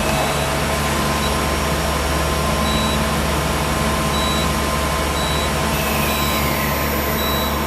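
Okuma LT 200 M CNC lathe powered up and humming steadily, its spindle not turning, with a short high beep repeating about once a second. A brief falling whine comes about six seconds in.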